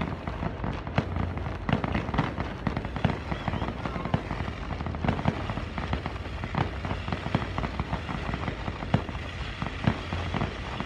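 Fireworks going off in a rapid, irregular stream of sharp pops and bangs.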